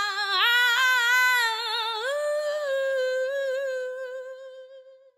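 A lone voice singing or humming with no beat behind it: a wavering held note that slides up about two seconds in, holds, and fades out near the end as the song closes.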